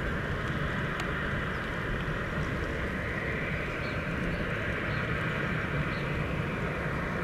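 Boeing 737-800's CFM56 turbofan engines running as the airliner rolls along the runway after landing: a steady jet hiss with a low rumble beneath.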